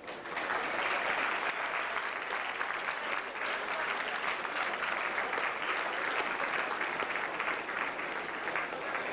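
Audience applauding, many people clapping at once; it swells up within the first second and eases slightly near the end.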